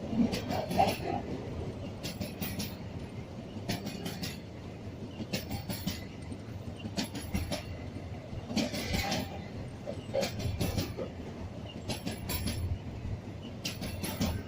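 Train cars rolling past over jointed track, the wheels clacking over the rail joints in groups about every one and a half seconds above a steady rumble.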